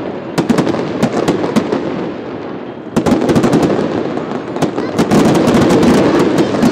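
Aerial fireworks shells bursting overhead in rapid pops and bangs. A fresh salvo starts about three seconds in, and the popping grows dense and loud from about five seconds on.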